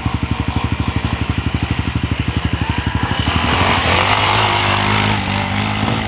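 Motorcycle engine running with an even, rapid beat of about nine to ten pulses a second, then picking up to a fuller, busier run about three seconds in.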